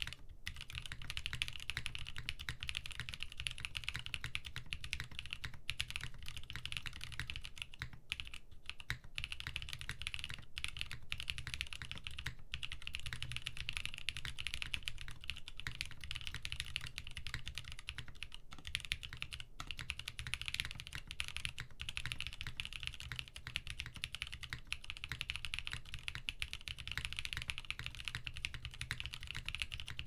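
Continuous fast typing on an Equalz Zer0.9 mechanical keyboard with a polycarbonate plate, linear Gateron Milk switch housings with Kailh Black stems and 67 g JWK springs, and ePBT keycaps, with no dampening. The keystrokes come as a steady, dense stream of soft clacks.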